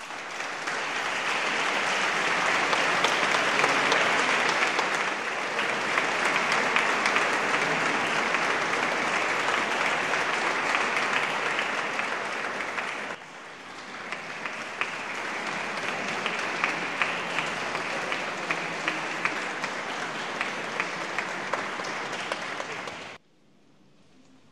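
Audience applauding after the piece ends, dense and sustained. It drops briefly about halfway through, then cuts off suddenly near the end.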